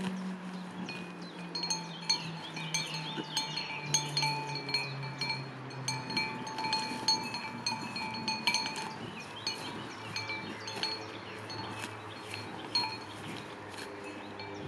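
A cattle bell on grazing Highland cattle clanking and ringing irregularly as the animal moves its head to crop the grass. A faint low drone slowly falls in pitch over the first half.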